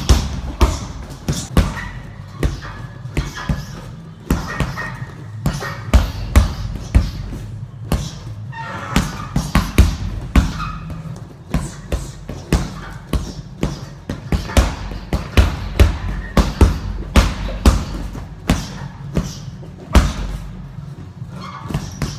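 Gloved punches landing on a Fairtex heavy bag: sharp thuds in quick combinations of two to four, with short pauses between them.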